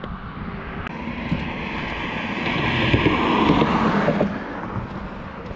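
Highway traffic: a vehicle passing close by, its noise swelling to a peak about three seconds in and then fading.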